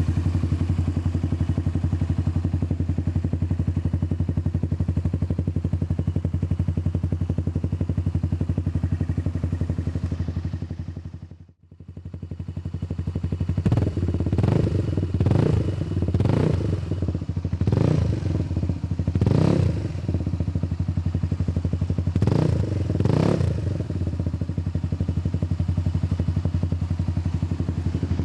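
Hammerhead 150cc buggy's GY6 single-cylinder four-stroke engine running through an aftermarket MRP exhaust. It idles steadily, cuts out briefly about midway, then gets about seven quick throttle blips that rise and fall, and settles back to idle.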